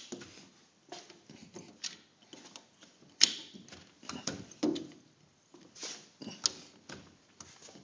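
Irregular light clicks, taps and small knocks, a few a second, with a sharper click about three seconds in: handling and movement noise from someone moving about with a handheld camera.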